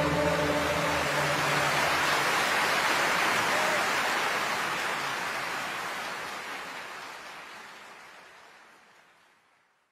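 The orchestra and choir's final held chord dies away in the first second or so under audience applause, which then fades out gradually toward the end.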